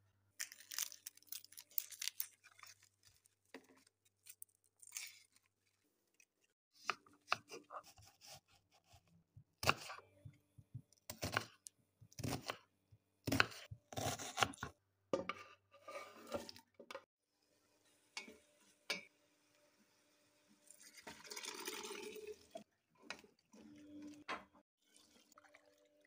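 Kitchen cooking sounds: a run of sharp knocks from a knife chopping onion on a wooden cutting board, with other clatter of pot and utensils around it and a hiss lasting about two seconds near the end.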